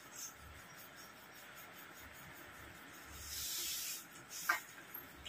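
Quiet sounds of a meal eaten by hand: rice and curry mixed on plates and a spoon on a steel bowl. There is a brief hiss about three seconds in and a short tap about a second later.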